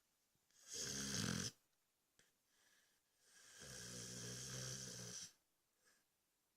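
Cane Corso snoring in its sleep: a short, louder rattling snore about a second in, then a longer one about three and a half seconds in, with faint breathing between.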